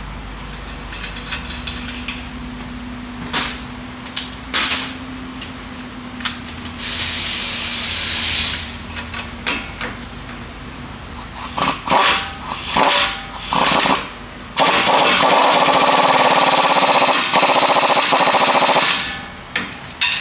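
Impact wrench running the new nut onto the upper ball joint stud: a few short bursts a little past halfway, then one long run of about four seconds near the end. Before that, scattered clanks of tools and parts.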